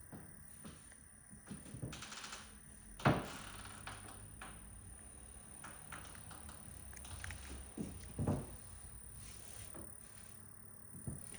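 CHiQ 503L quad-door fridge giving a steady, extremely high-pitched whine while its compressor runs, a fault present since new. A few knocks and rustles sound over it, the loudest about three seconds in.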